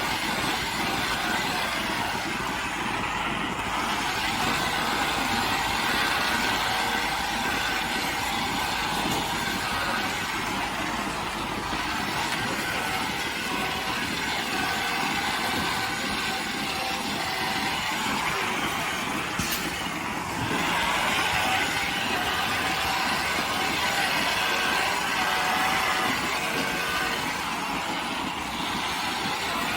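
Farm machinery running steadily, a continuous mechanical noise with some faint high whining tones.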